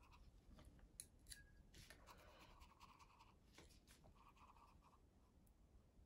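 Faint scratching of a small round watercolor brush stroking over paper: a few soft strokes and light taps, dying away to near silence about two-thirds of the way through.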